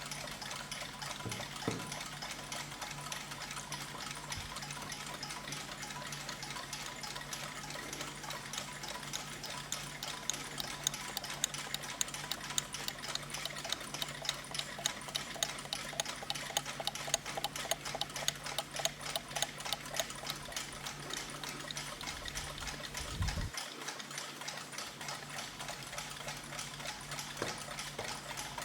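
Mechanical clocks ticking: a rapid, dense run of fine ticks over a faint low hum, with one soft low bump near the end.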